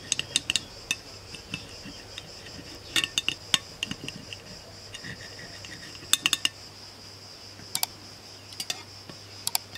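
A knife clicking and scraping against a glass plate while slicing a crusty tandoor-baked flatbread into wedges, in irregular clusters of sharp ticks.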